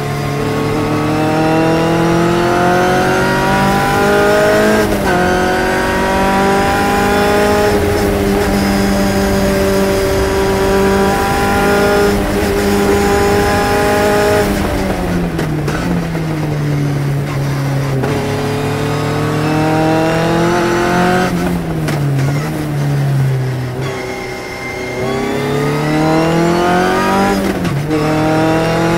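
Phantom S21 sports racing car's engine heard from the cockpit at race pace, climbing in pitch through quick upshifts, falling away twice under braking and downshifts, then pulling up through the gears again.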